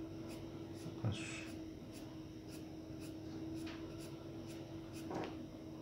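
Graphite pencil scratching on drawing paper in quick, evenly repeated hatching strokes, about three a second, each pressed hard at the start and lightened outward to build a graded shade. A soft knock comes about a second in.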